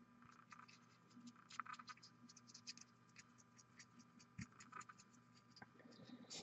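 Faint scratching and light ticks of a fine paintbrush being worked over a miniature held in the fingers, over a low steady hum.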